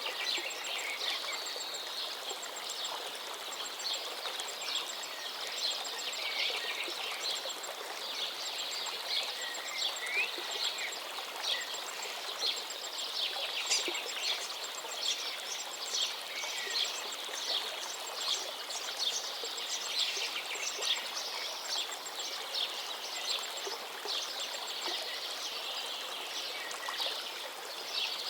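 Woodland songbirds singing in a busy chorus of quick chirps and trills over the steady rush of a flowing forest river.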